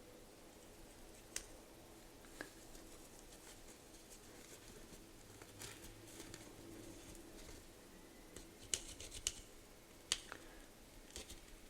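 Faint, sparse clicks and light scraping as a small wooden skewer works over the metal top of a vintage Eveready automatic petrol lighter, cleaning grime out of the piston seat. The clicks are scattered through it, and there is a short stretch of scraping around the middle.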